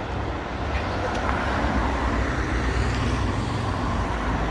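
Steady rumble of passing road traffic on a city street.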